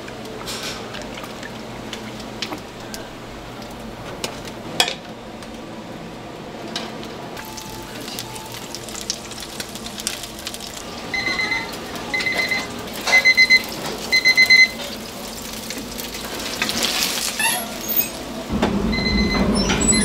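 An electronic beeper sounding four short runs of quick high beeps in the middle, then one more beep near the end, over a steady background with scattered clicks and clinks. A low rumble comes in near the end.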